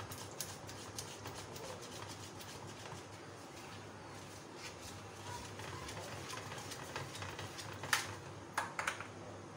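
Wire whisk beating thickening vanaspati ghee in a metal saucepan, its wires ticking and scraping against the pan in quick, irregular strokes, with a few sharper clinks on the rim near the end. The ghee is being beaten over ice water so that it whitens and sets into margarine.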